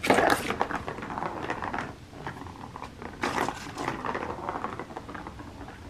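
A plastic ball rolling around a Turbo Track cat toy's plastic circuit track, rattling and clattering. The rattle starts suddenly, fades, and picks up again about three seconds in.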